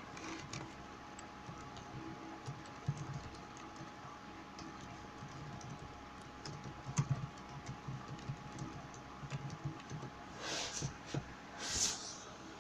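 Faint, irregular light clicks and taps, like typing, over a faint steady tone. Two short hissing rustles come near the end.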